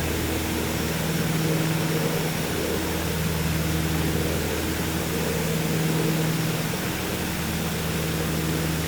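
Piper PA-30 Twin Comanche's two four-cylinder Lycoming engines and propellers droning steadily, with an even rush of airflow noise around the cabin.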